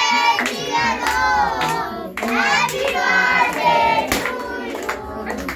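Children and adults singing together in high voices, with hand clapping, pausing briefly about two seconds in.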